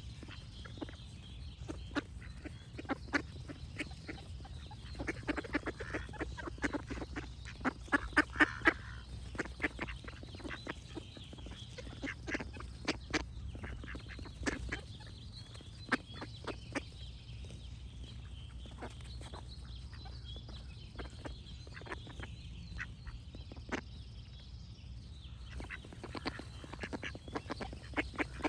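Ducks quacking in repeated bursts of short calls, densest and loudest about five to nine seconds in, with birds singing faintly behind and a low steady rumble underneath.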